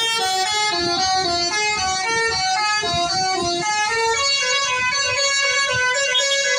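Basuri telolet horn on a bus playing a tune: a quick run of short, stepped horn notes, loud and unbroken.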